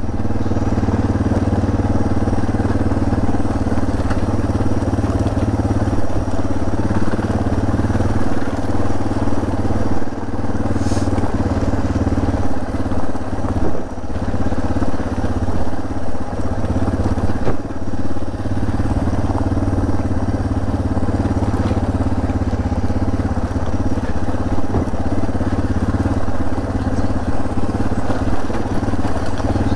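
Suzuki DR650's single-cylinder four-stroke engine running at steady low revs as the motorcycle picks its way slowly along a rough track of jagged rock, with the tyres crunching over stones.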